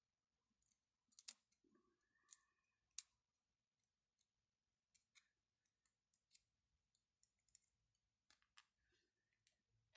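Scattered small, sharp clicks of tweezers against the plastic parts of a 3D-printed mechanical counter as small pieces are fitted into it. The three loudest clicks fall in the first three seconds.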